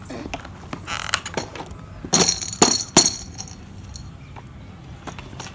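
A few sharp knocks and clinks from handling a cardboard phone box and its plastic inner tray, each with a short metallic ring. The loudest come about two to three seconds in.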